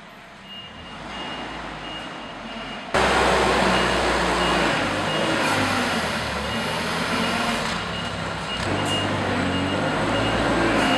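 A warning beeper sounding in short, evenly repeated high beeps, with a loud, steady machine noise switching on suddenly about three seconds in and running on under it.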